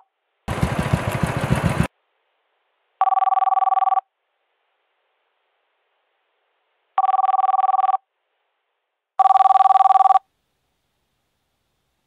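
A telephone ringing tone: a two-note electronic tone sounding in about one-second bursts, three times, with silent gaps between. A short burst of hiss comes about half a second in.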